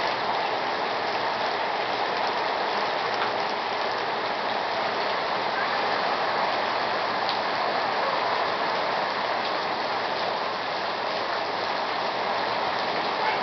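Torrential rain pouring steadily onto wet pavement and parked cars, an even, unbroken wash of noise.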